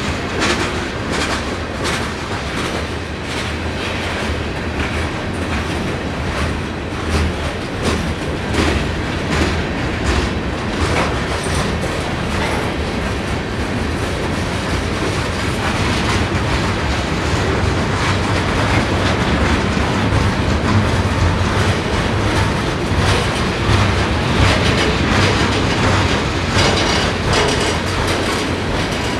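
Norfolk Southern freight train's cars rolling past close by, a steady rumble of wheels on rail with repeated clickety-clack clicks as the wheels pass over the rail joints.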